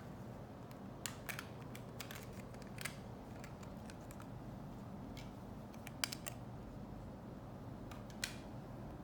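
Scattered small, sharp clicks and taps from parts and tools being handled while working inside a computer, about a dozen at irregular intervals over a steady low hum.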